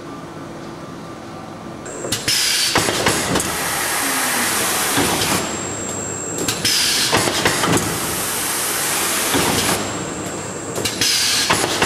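Tobacco packaging machine working through its cycle: it starts about two seconds in, then runs with loud hiss and clatter in stretches of about three seconds, broken by brief quieter pauses roughly every four seconds.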